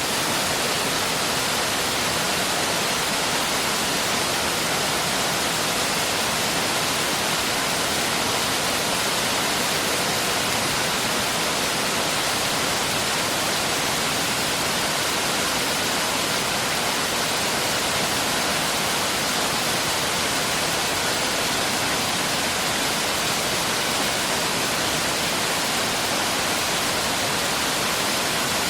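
Mountain valley stream rushing steadily, a constant even wash of running water.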